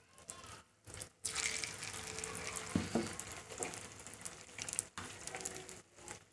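Marinated jackfruit pieces frying in hot oil in a pan: a crackling sizzle that jumps up sharply about a second in and then keeps going steadily, with one brief knock about three seconds in.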